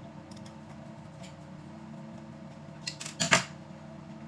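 Light plastic clicks from parts of a car door handle assembly being worked loose, with a sharper cluster of clicks about three seconds in, over a steady low hum.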